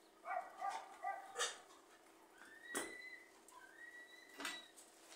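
Faint animal calls: a few short whining sounds, then several thin, high whistled notes, with a few light clicks in between.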